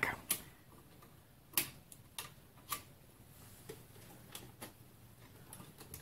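Cables being unplugged from the back of a desktop computer: a handful of short, irregular clicks and knocks as plugs and connectors are pulled out and handled.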